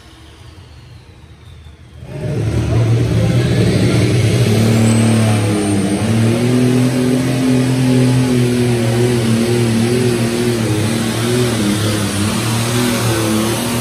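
Superstock pulling tractor's engine running wide open while dragging the weight-transfer sled down the pulling track. The loud engine note comes in suddenly about two seconds in, after a quiet start, and holds a nearly steady pitch with slight wobbles.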